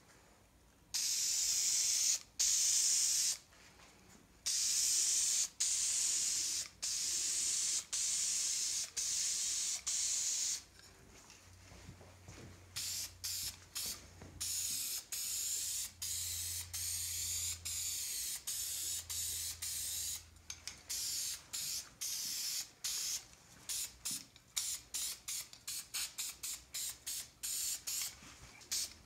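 VHT burnt copper aerosol spray paint hissing from the can as a coat is sprayed onto a valve cover: first a few long sprays, then, about halfway through, many short quick bursts.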